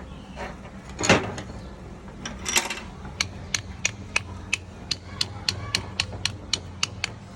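Workshop hand-tool work during an air-compressor restoration: a sharp knock, then a run of evenly spaced clicks, about four a second, over a steady low hum.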